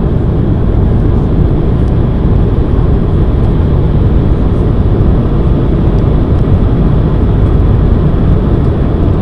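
Jet airliner cabin noise heard from a window seat over the wing during the descent to land: the underwing turbofan engine and airflow make a loud, steady, deep noise.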